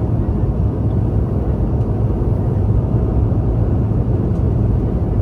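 Steady low roar inside the passenger cabin of a Boeing 717 during its descent to land: airflow and engine noise heard from a window seat.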